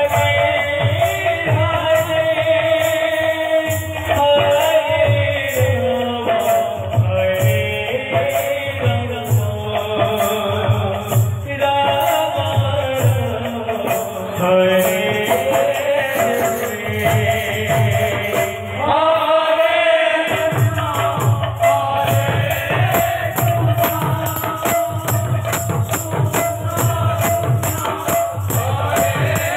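Live devotional kirtan: a man sings through an amplified microphone over a barrel drum beat and a fast, steady metallic jingling. The drum drops out briefly about two-thirds through, then picks up again.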